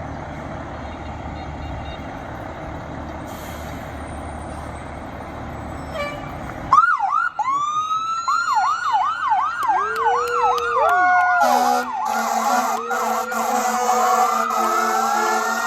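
Low steady rumble of idling emergency-vehicle engines. About seven seconds in, several sirens from fire trucks, an ambulance and a police car start at once, their fast rising-and-falling yelp sweeps overlapping, and steady blaring horn tones join in a few seconds later.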